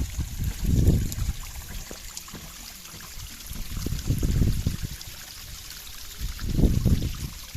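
River water flowing and splashing over rocks: a steady hiss with uneven low rumbling swells that rise and fall every few seconds.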